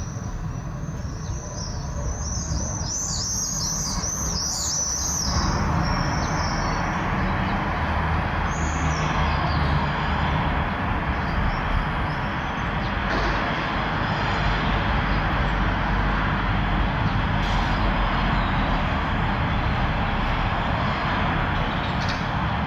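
Small birds chirping in quick repeated runs for the first few seconds, then the noise of road traffic rises about five seconds in and holds steady with a low rumble under it.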